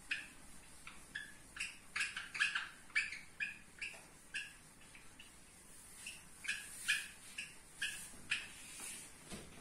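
Handheld whiteboard eraser squeaking as it is rubbed across the board: a run of short, irregular high squeaks, with a brief lull about halfway.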